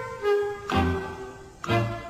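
Background music, with a new chord over a low bass note about once a second.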